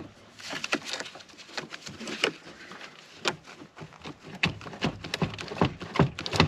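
Irregular metallic clicks and knocks of a hand wrench working loose the nut on a truck battery's positive terminal, a few a second, getting louder near the end.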